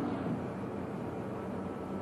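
Steady low machinery rumble with hiss, as of a diving vessel's engines and deck machinery, holding even throughout.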